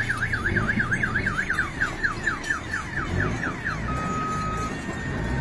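Electronic multi-tone siren cycling through its patterns, of the kind fitted to vehicles as a security or reversing alarm: a fast up-and-down warble, then quick falling chirps about four a second, then a steady beep about four seconds in. A low engine rumble runs beneath it.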